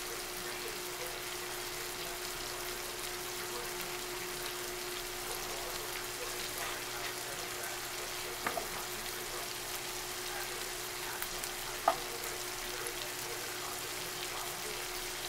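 Spice-crusted chicken breasts sizzling in butter in a nonstick frying pan, an even crackling hiss with a low steady hum underneath. A few sharp clicks come about halfway through and again about three-quarters through.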